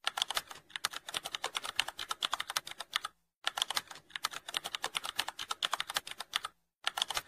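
Rapid computer-keyboard typing clicks, a typing sound effect, stopping briefly twice: once about three seconds in and again near the end.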